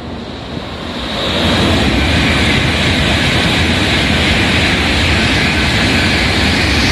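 N700 series Shinkansen bullet train passing through the station at speed without stopping: a loud rushing noise that builds about a second in and then holds steady.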